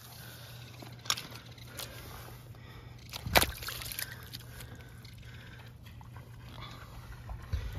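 A freshly landed coho salmon thrashing on wet mud in shallow water, giving a few sharp slaps and splashes; the loudest comes about three and a half seconds in.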